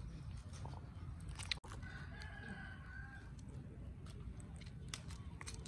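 A rooster crowing once in the background, a single held call of a little over a second starting about two seconds in, over a steady low rumble.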